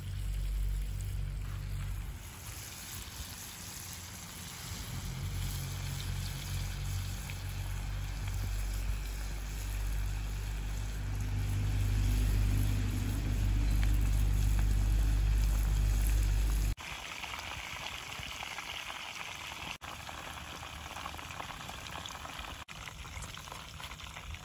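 Batter-coated chicken drumsticks deep-frying in hot soybean oil: a steady sizzling and bubbling. A low rumble runs under it for about the first two-thirds and cuts off suddenly.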